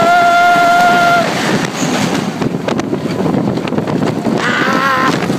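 A rider's loud, long held yell stops about a second in. Wind rush and the rumble of the roller coaster train at speed follow, and near the end another brief wavering cry is heard.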